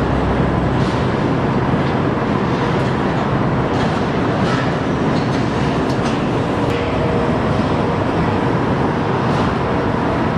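Car assembly plant floor noise: a steady, dense machinery din from the body line, with scattered short metallic clicks and knocks and faint steady machine tones.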